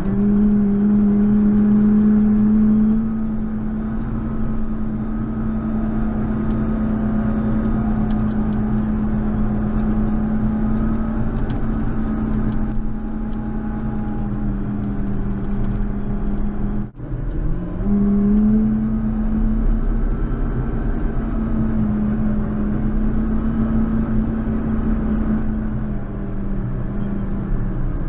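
JCB Fastrac 4220 tractor's engine running under load while snow plowing, a loud steady drone. About seventeen seconds in the sound drops out for a moment, then the engine pitch rises again as it picks up revs.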